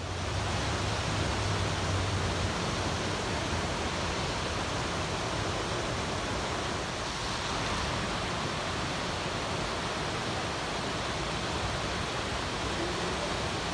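Rushing water of a rocky mountain river running over rapids, a steady even roar. A low hum lies under it for the first two seconds or so.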